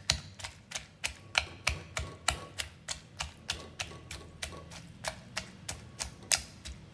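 Wooden pestle pounding in a wooden mortar, crushing pea eggplants, garlic and tomatoes: steady, even knocks at about three a second.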